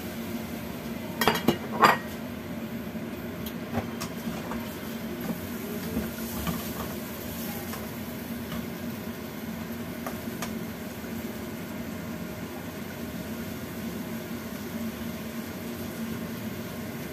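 A spatula stirring and scraping cubed tofu and mushrooms in a non-stick frying pan, with a few sharp clinks of cookware about two seconds in and light knocks after, over a steady low hum.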